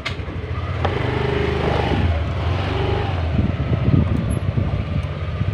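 Motorcycle engine running, rising over the first second and then holding steady.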